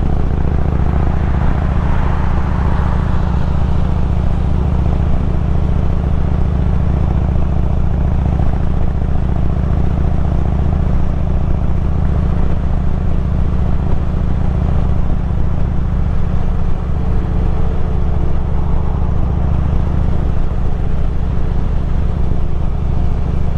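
Harley-Davidson Road King's V-twin engine running steadily at cruising speed, with wind and road rush over it.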